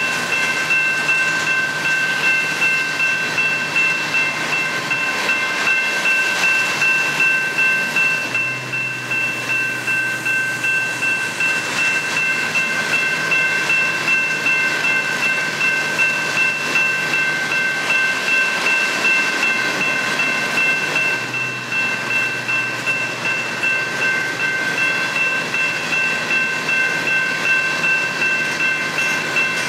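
Freight train's coal hopper cars rolling steadily past a grade crossing, with wheels clacking over the rail joints. Steady high ringing from the crossing bell runs over the rumble.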